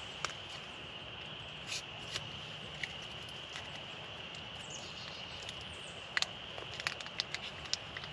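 Light clicks and taps of a Spam can and a folding knife being handled: a few scattered ones at first, then a quick run of them in the last couple of seconds. Under them runs a steady high-pitched drone, and there is one faint falling chirp about halfway through.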